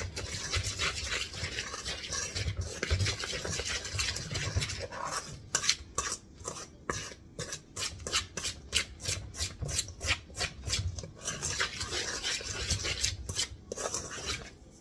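A metal utensil stirring and scraping seasoned flour around a stainless steel bowl. About five seconds in, the stirring turns to quick, even strokes for several seconds, then goes back to continuous scraping.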